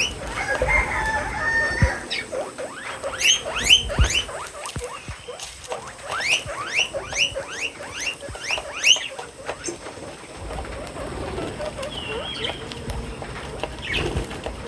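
Birds calling while feeding: a short warble, then two runs of quick, sharp calls, each sliding steeply down in pitch, about half a dozen per run.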